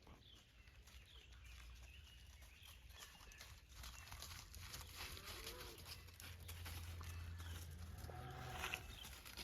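Faint sounds of a cattle herd on the move: a couple of low calls from the cows, small bird chirps throughout, and scattered clicks. A low rumble grows louder in the second half.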